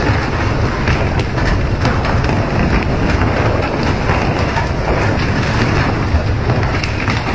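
Steady rush of water spray and boat noise on a pole-and-line skipjack tuna boat, with scattered sharp knocks and slaps as fish are swung aboard on the poles.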